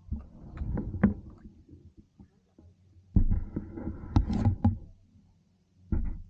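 Handling noise of a camera being set up on a kayak: knocks, bumps and low rumbling thuds in three bursts, the middle one the longest.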